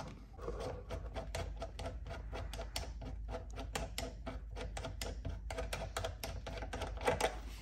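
Hand rivet-nut (nutsert) tool crimping a steel rivet nut into a drilled hole in a Jeep Gladiator's body as its handles are worked, making a rapid run of fairly even metallic clicks, several a second.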